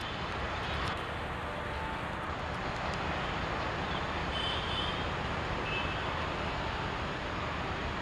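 Passenger train's coaches moving away over the rails, a steady rumble of wheels on track.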